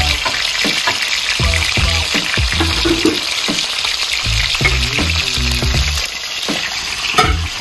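Food frying in a pan of hot oil: a steady sizzle, with music playing underneath.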